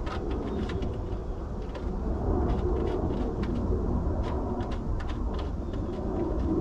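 Steady low rumble with scattered light clicks and taps of parts and hand tools as a car radiator is being fitted.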